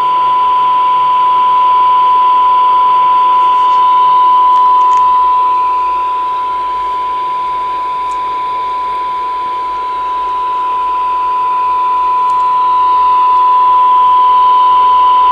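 CRE8900 CB radio's receiver sounding a steady test tone over a bed of hiss. It is demodulating a weak AM test signal, about 0.75 microvolt and 30% modulation, from an IFR 500 service monitor. The tone is loud and unbroken, dipping a little in level midway.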